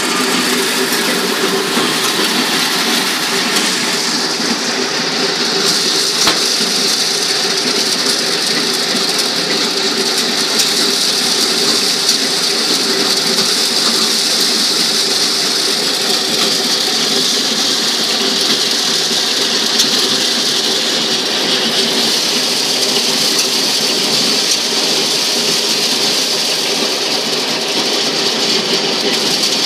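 Motor-driven maize sheller running steadily, shelling corn cobs that are fed in by hand.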